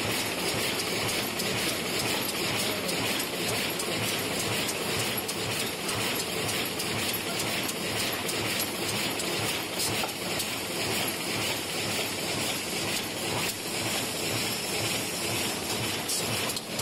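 Automatic paper cup making machine running at speed, with a steady, rapid mechanical clatter.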